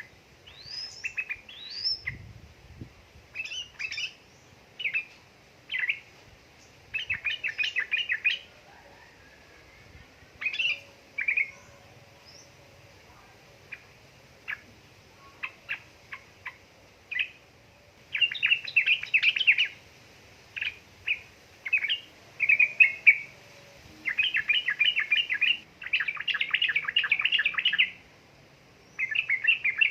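Yellow-vented bulbul (trucukan) singing: quick rising chirps at first, then bursts of rapid chattering notes, the longest run near the end.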